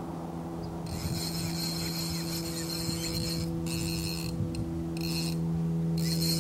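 Casting reel worked in spells during a fight with a sturgeon, a fine high rattle that starts and stops several times, over a steady low hum.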